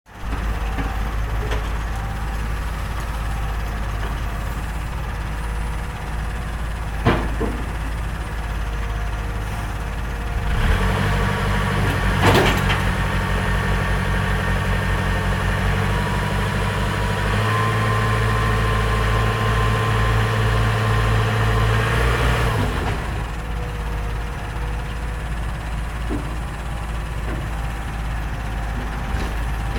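Heavy diesel earthmoving machinery engine running, working harder under load for about twelve seconds in the middle, its note stepping up partway through before dropping back. A couple of sharp metallic knocks are heard, one about seven seconds in and one during the loaded stretch.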